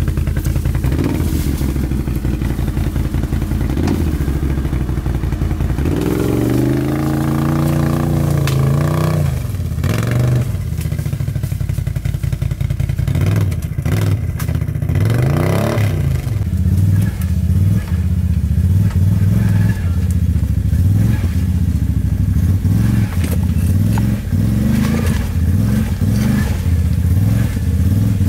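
Can-Am ATV engine revving up and down in repeated surges as the quad crawls through thick brush and over rocks. Brush and branches crackle and scrape against the machine.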